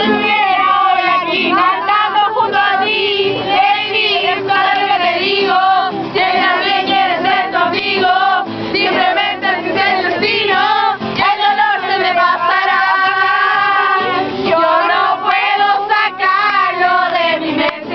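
A group of young voices singing a song together, many voices at once.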